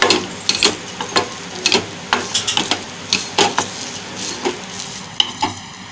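Wooden spatula stirring and scraping freshly grated coconut around a nonstick pan, with repeated strokes about two a second that stop near the end. The coconut is being lightly dry-roasted, without fat yet.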